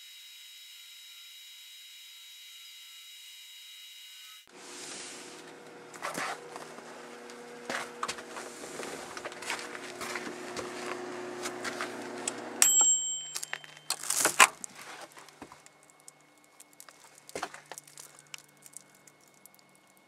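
Microwave oven running with a steady hum while a Motorola cell phone and its battery crackle and pop inside it, arcing and burning; a steady high whine comes first, for about four seconds. About 13 seconds in the hum stops with a brief ring from the timer, loud clicks follow as the door is opened, then faint crackling.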